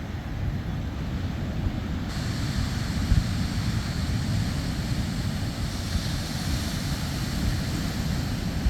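Ocean surf washing on a sandy beach, with wind buffeting the microphone in a heavy low rumble. A brighter hiss of wash comes in about two seconds in.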